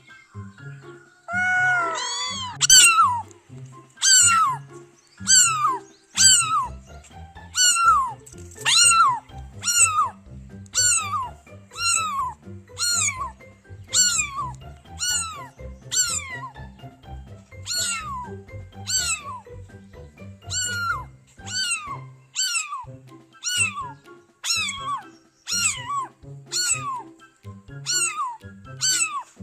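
A cat meowing over and over, about one short meow a second, each rising and then falling in pitch, with low music underneath.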